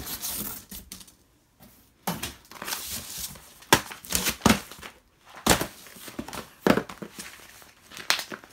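Cardboard box flaps and a plastic-bagged pack of braiding hair rustling and crinkling as the pack is handled and lifted out of the box. The noise comes in irregular rustles and sharp crackles, with a short lull between one and two seconds in.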